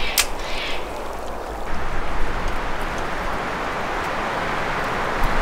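Creek water running, a steady rushing haze that grows louder and fuller about two seconds in, with a short click near the start.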